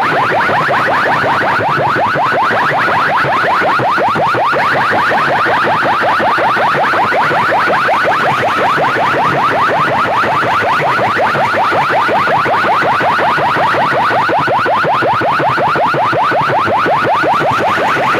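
Large PA sound system with horn speakers blasting a loud, harsh electronic effect tone: a fast train of short sweeps repeating several times a second, siren-like and steady.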